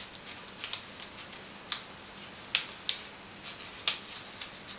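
Stiff card pieces of a sliceform paper model being slid and woven through one another's slots, giving a handful of short, sharp paper clicks and rustles spread over a few seconds.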